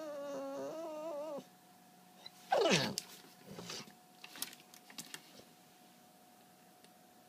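Dog whining in a wavering high pitch for about a second and a half, then a short, louder whine sliding steeply down in pitch about two and a half seconds in, followed by a few light clicks.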